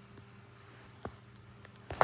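Quiet room tone: a faint steady low hum with a couple of small clicks, the clearest about a second in.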